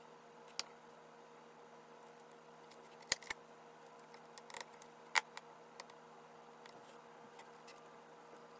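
Small sharp clicks and taps of a precision screwdriver and tiny metal parts against an opened iPhone 7's frame and shield plates. There are a handful of separate clicks, with two close together about three seconds in.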